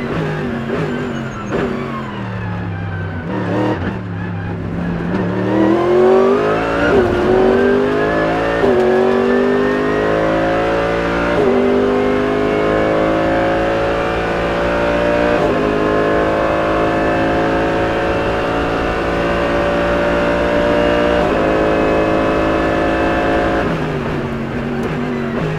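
Mercedes-AMG GT3 Evo race car's naturally aspirated V8 heard from inside the cockpit. For the first few seconds the revs fall as the car slows through downshifts, then it accelerates hard through several upshifts, each shift a sudden drop in pitch. It holds high revs on a long pull and lifts off near the end.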